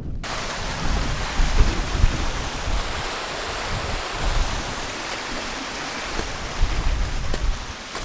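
Steady rushing hiss of a small mountain stream running over rocks, with strong wind rumbling and buffeting on the microphone in gusts.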